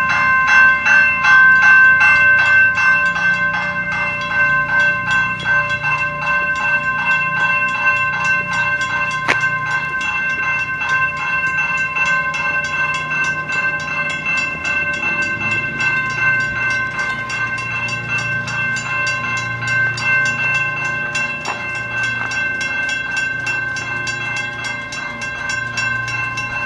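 Mechanical railroad crossing bells ringing on and on in rapid, even strokes with a steady metallic tone. The crossing is falsely activated with no train present: the island circuit is detecting something that isn't there.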